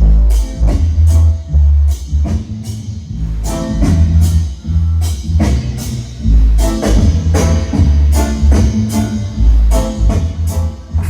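Bass-heavy music with a drum kit and guitar, played loud with a booming bass line.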